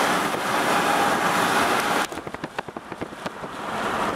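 Strong wind rushing over the microphone. About two seconds in it drops off abruptly to a scatter of knocks and thumps, then builds again.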